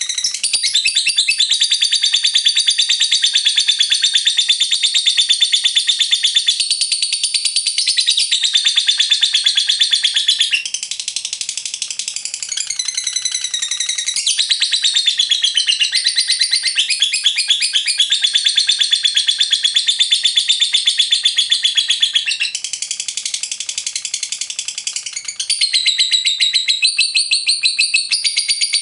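Lovebird singing the long chattering trill that keepers call 'ngekek panjang': a loud, very fast stream of high notes that shifts in pitch now and then and softens briefly twice.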